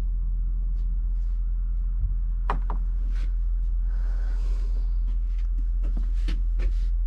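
Small pieces of jewelry being picked up and handled, giving scattered faint clicks and a soft rustle about four seconds in, over a steady low hum.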